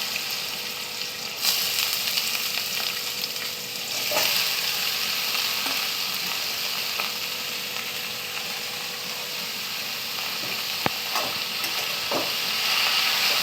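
Shredded ash gourd sizzling steadily in hot mustard oil in a kadai, the sizzle swelling twice in the first few seconds. Near the end a spatula stirs it, with a few sharp clicks against the pan.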